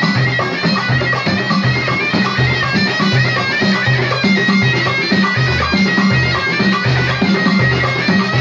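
Moroccan traditional troupe music: a shrill reed pipe (ghaita) playing a stepping melody over a steady beat on large tbel drums.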